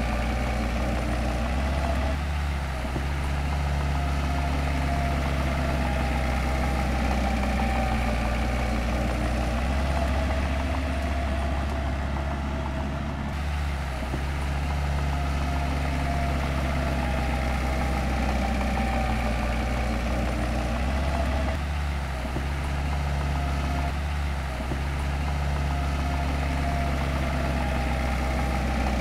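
Heavy diesel engine of earthmoving machinery running steadily, with small shifts in pitch and a few brief dips in level as the load changes.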